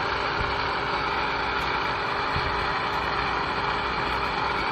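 A water pump's motor running with a steady, unbroken drone.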